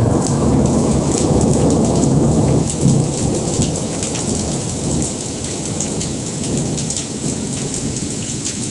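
AI-generated sound effect of heavy rain with rolling thunder: a low thunder rumble is strongest over the first three seconds, then eases under steady rain.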